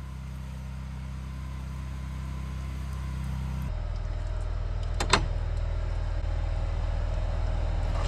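An engine running steadily, slowly getting louder, its note shifting slightly past the middle, with one sharp click about five seconds in.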